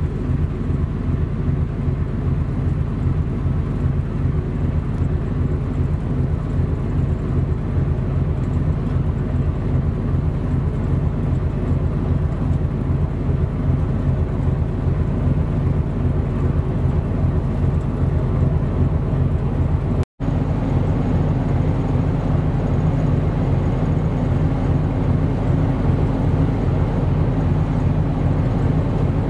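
High-speed passenger boat's engines running with a steady low rumble as it passes at speed, broken by a momentary gap about two-thirds of the way through.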